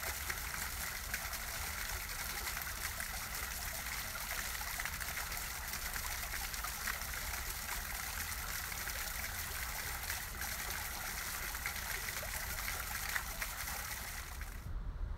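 A foaming fountain jet splashing steadily: a dense hiss of falling water with fine crackle. The splashing cuts off suddenly near the end.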